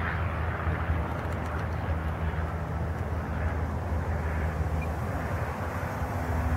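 Steady low outdoor rumble with the faint drone of a distant electric RC model airplane's propeller.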